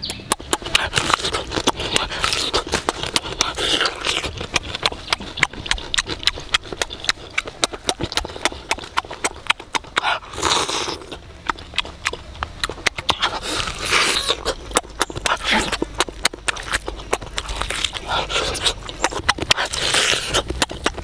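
A man eating roasted pig leg close to the microphone: rapid, wet lip smacking and chewing throughout, with a longer slurp of chili sauce about halfway through and a few more noisy sucking sounds later.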